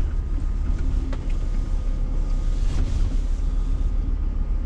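Scania S500 truck's diesel engine and drivetrain rumbling, heard from inside the cab as the tractor unit rolls slowly and turns, with a couple of faint ticks over the steady low rumble.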